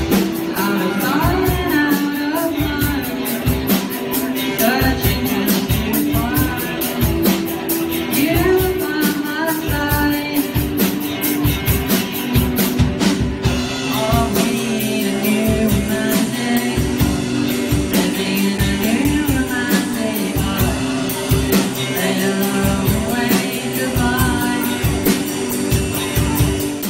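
A live rock band, two electric guitars and a drum kit, playing a song while a young male singer sings lead, with a steady driving drum beat throughout. The music cuts off abruptly at the end.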